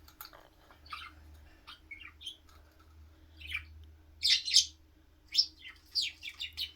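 Budgerigar giving short, scattered chirps and harsh calls, agitated at a toy that won't move, with a few light clicks between; the calls come thickest about four seconds in and again near the end.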